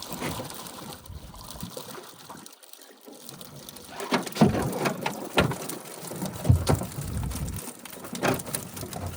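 Water splashing and dripping as a loaded fishing net is hauled out of the lake, quieter at first, then from about four seconds in a run of irregular splashes and thumps.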